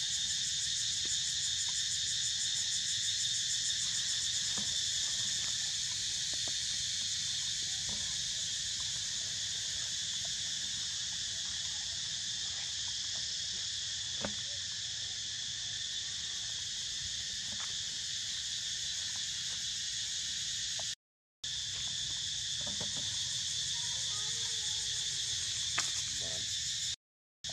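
Steady, high-pitched chorus of insects, with a few faint ticks; the sound cuts out briefly twice near the end.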